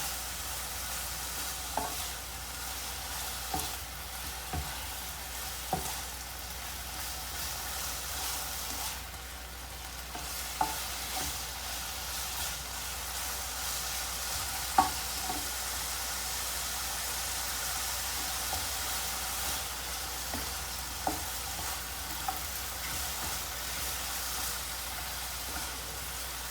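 Chopped chicken, beef and fishcake frying with a steady sizzle while being stir-fried, the meat cooking until it changes colour. A spatula knocks against the pan every few seconds, loudest about halfway through.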